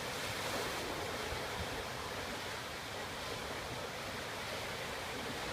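Sea surf washing in, a steady rush of water with no single distinct crash.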